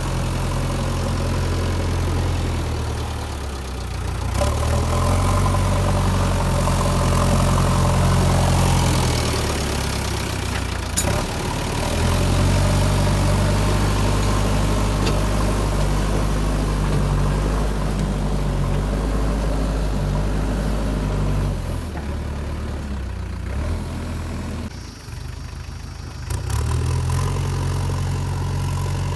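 Diesel engine of a JCB 3DX backhoe loader running, revving up and easing back to idle several times.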